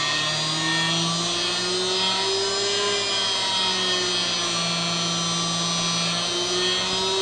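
CNC spindle motor driven by a Huanyang VFD, running with a steady whine whose pitch steps and glides up and down as its speed is adjusted from Mach3.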